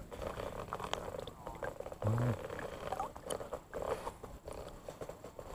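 Water sloshing and lapping around a wading angler, with clicks and rustles from handling a fishing rod and line. A brief low hum about two seconds in is the loudest sound.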